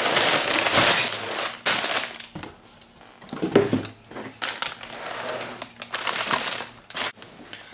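Sealed plastic bags of LEGO pieces tipped out of a cardboard box, the bags crinkling and the bricks inside rattling. Loudest in the first two seconds, then further crinkling after a short lull.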